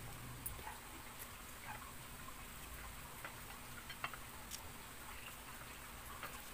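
Faint, scattered small clicks and crackles as bok choy leaves are handled and wrapped around a fish on a plate.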